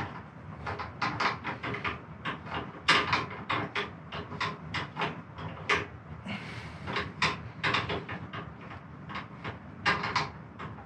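Central Machinery 4x6 metal-cutting bandsaw running with no cut, a low steady hum under a rapid, uneven clatter of clicks and knocks.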